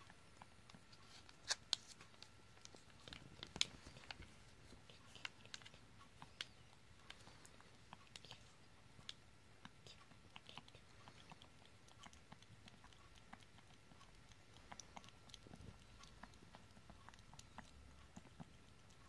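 Kitten licking paste from a squeezable cat-treat tube: faint, irregular wet licking clicks and smacks, with a few louder clicks in the first four seconds.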